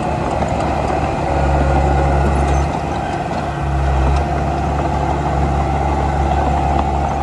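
Komatsu D31P bulldozer's diesel engine running under load while pushing dirt. A steady whine sits over the engine rumble. The engine note swells about a second in, dips briefly around three seconds, then pulls up again.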